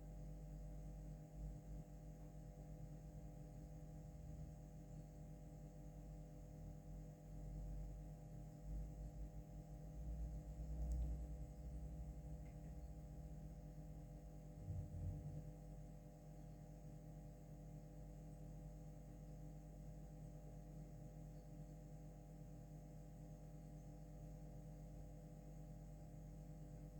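Quiet room tone with a steady low electrical hum, and a few soft low rumbles about a third of the way in and again about halfway.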